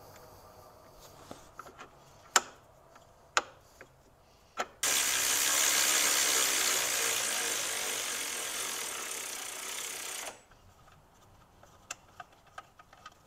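Cordless electric ratchet running for about five seconds, spinning the idler pulley bolt down, then stopping suddenly. Two sharp clicks come a couple of seconds before it starts.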